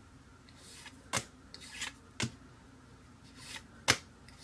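Trading cards handled one at a time: short swishes of card sliding over card, and three sharp taps or snaps as cards are flicked or set down.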